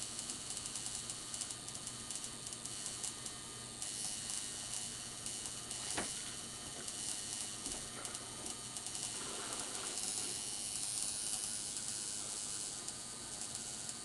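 Tattoo machine buzzing steadily as its needle works into the skin of a forearm, with a single sharp click about six seconds in.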